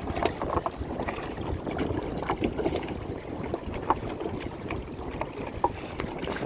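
Water splashing and lapping around a kayak in many small irregular splashes, with wind noise on the microphone.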